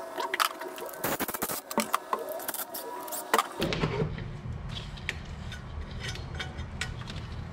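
Hand tools clicking and clanking on metal as the clamps and bolts on a diesel engine's intake horn are loosened. About halfway through, a steady low rumble comes in, with fewer and softer clicks as the horn is worked loose by hand.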